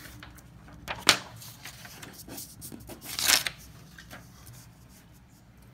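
Sheets of paper being handled and shifted: a short sharp snap about a second in, then a longer rustle around three seconds in.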